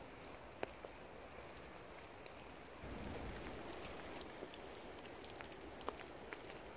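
Faint patter of wet snowfall and drips landing in snowy woodland: a soft steady hiss with scattered sharp ticks at irregular times. About three seconds in, the background grows a little louder with a low rumble.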